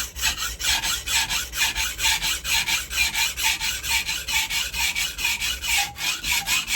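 Japanese kitchen knife ground back and forth on a wet 400-grit diamond sharpening stone: loud, even rasping strokes, about five a second, removing steel quickly to set a first edge.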